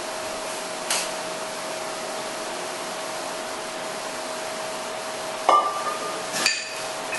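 Metal clanks as the anvil and iron weight plates of a grip-training lift are handled: a light click about a second in, then two loud ringing clanks about a second apart near the end, over a steady hum and hiss.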